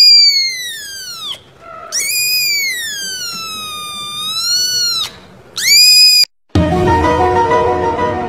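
A kitten meowing three times in high, pure calls. The first lasts about a second and a half and falls in pitch, the second is long, about three seconds, dipping and then rising, and the third is short and rising. Near the end, after a cut, music with several held tones takes over.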